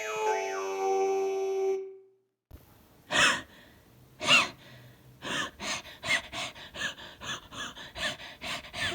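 Keyboard music ends about two seconds in. A person then wheezes: two long gasping breaths with a squeaky whistle in them, then a fast run of short wheezing gasps, about four a second.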